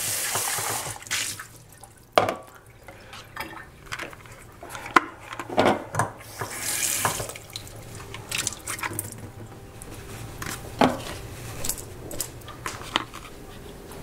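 Kitchen tap running into the sink as a plastic microwave noodle bowl is rinsed. The water stops about a second in, then comes the knocking and clatter of the plastic bowl being handled, with another short run of water about halfway through.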